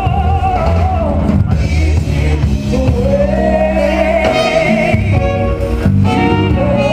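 Live band with saxophone and other horns playing, its lead melody holding long, wavering notes over a dense low accompaniment.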